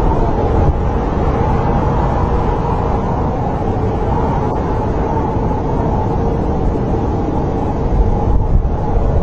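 Snowstorm wind blowing steadily with a deep rumble and a faint, held howling tone.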